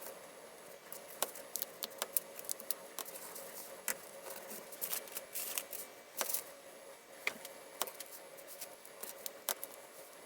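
Small plastic Lego pieces being handled and pressed together, making irregular sharp clicks and light rattling.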